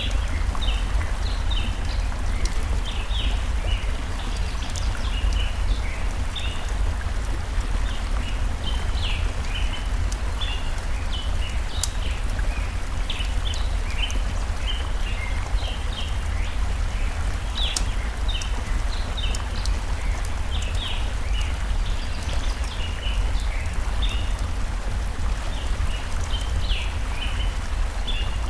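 Flowing forest stream giving a steady low rumble and hiss, with many short bird chirps throughout and a few sharp pops from a crackling campfire.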